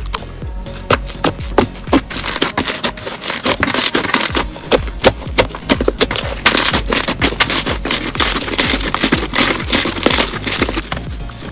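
Slime being squeezed and pressed by hand, giving dense, irregular crackling and popping clicks that thicken a couple of seconds in and ease off near the end.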